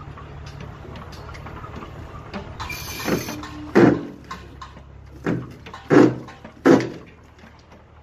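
Steady low hum of site machinery, with four loud sudden thuds in the second half, the last three about two-thirds of a second apart, as a wooden pole is worked up and down in wet concrete inside the formwork.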